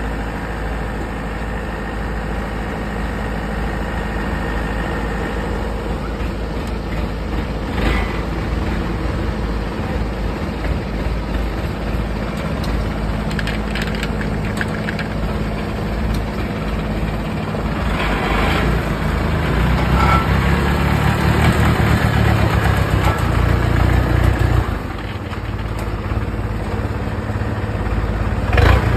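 Yanmar 820 combine harvester's diesel engine running steadily, growing louder and heavier for about six seconds past the middle before dropping back. A few sharp knocks sound over it.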